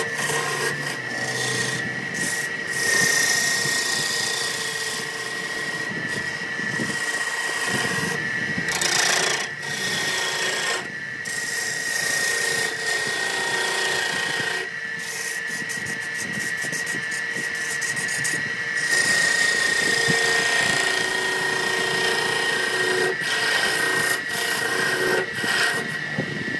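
Wood lathe spinning a wooden dish blank while a hand-held turning tool cuts it, an uneven scraping hiss that swells and eases as the tool bites. A steady high whine from the lathe runs underneath.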